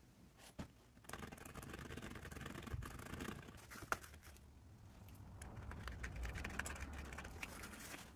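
Hands handling nylon webbing strips and a canvas chest rig on a wooden bench: soft rustling and scratching, with two sharp clicks, one near the start and one about four seconds in.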